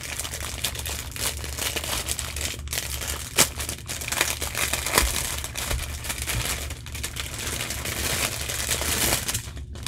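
Clear plastic wrapper crinkling as it is torn open and pulled off a bundle of diamond-painting drill bags, a dense crackle with a few sharper cracks.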